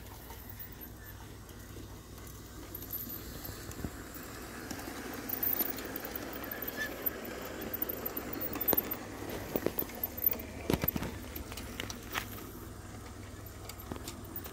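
Large-scale garden-railway model train running past on brass track, its wheels rattling and clicking over the rail joints. It grows louder over the first few seconds, with the sharpest clicks between about nine and twelve seconds in, then eases off.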